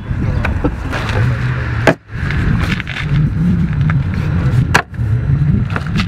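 Rustling and a few light knocks as bedding and gear are handled in the open rear of a minivan, over a low rumble.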